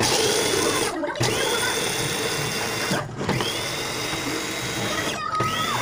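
Small electric food processor motor running in three short runs with brief breaks, grinding Cheetos into crumbs; each run starts with a whine that climbs and then holds steady.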